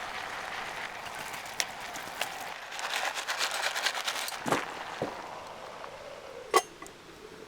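Campfire crackling and popping, with a denser run of crackles about three seconds in. A few knocks follow, then one sharp clink with a short ring near the end.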